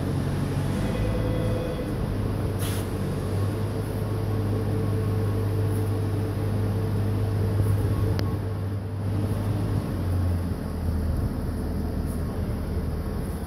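2004 Haas TM-2 CNC toolroom mill running under power with a steady mechanical hum. The hum drops back and changes about ten seconds in, and there is a brief sharp click under three seconds in.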